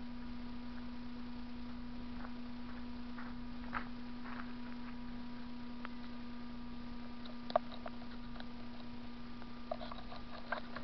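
Steady electrical hum with a fainter high tone, overlaid by scattered faint clicks and crackles that grow more frequent near the end.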